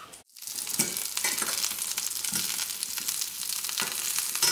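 Fish sticks sizzling and crackling as they fry in a stainless steel pan. Metal tongs click and scrape against the pan a few times as the sticks are turned.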